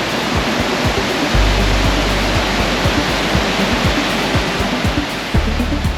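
Waterfall rushing steadily: a dense, even hiss of falling white water.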